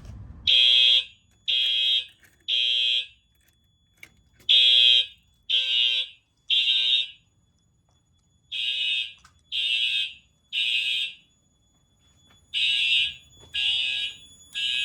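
Fire alarm horns sounding the general alarm in the temporal-three evacuation pattern: three short blasts about a second apart, then a pause, repeating four times.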